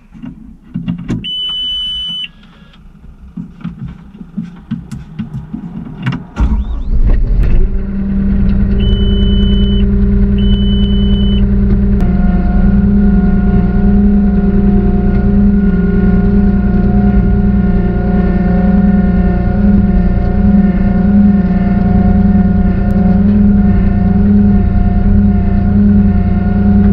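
JCB 150T skid loader's diesel engine started from inside the cab, catching about six seconds in and then running steadily. A high electronic beep sounds about a second in, and two short beeps follow a few seconds after the engine starts, with a few clicks and knocks before it.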